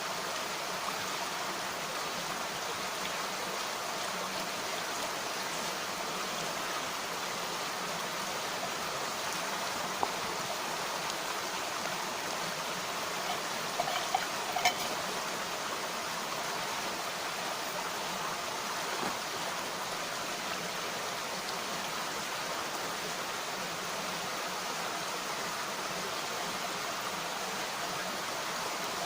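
A mountain stream flowing steadily over rocks, with a few faint ticks about a third and halfway through.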